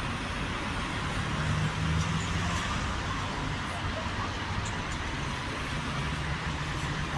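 Road traffic around a roundabout: a steady hiss of passing vehicles over a low engine hum, which swells briefly about one and a half seconds in.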